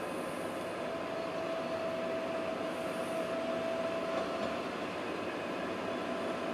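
Zephir LOK 20.300 rubber-tyred road-rail shunter running along the track: a steady mechanical running noise, with a thin whine held from about a second in until past the middle.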